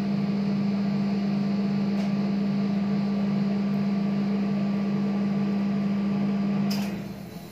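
Steady hum of a rolled ice cream machine's refrigeration unit running under its cold steel pan. Near the end there is a click and the hum dies away.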